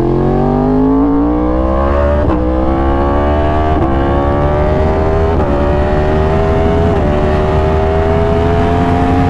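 2020 Yamaha R1's crossplane inline-four with an SC Project exhaust accelerating hard. It pulls up through the gears with four quick upshifts, each a brief dip in pitch before the engine note climbs again, more slowly in each higher gear.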